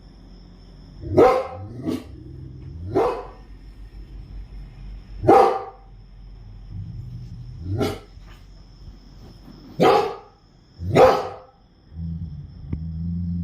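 Rottweiler barking: about seven deep single barks at uneven gaps of one to two and a half seconds, set off by crickets chirping at night.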